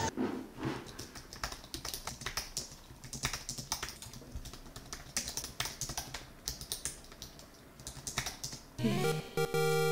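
Typing on a computer keyboard: a quick, irregular run of key clicks. Music comes in near the end.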